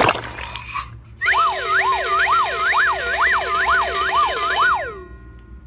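A warbling, siren-like whistle sweeping up and down in pitch about twice a second, starting about a second in and stopping suddenly near the end. A sharp click comes right at the start.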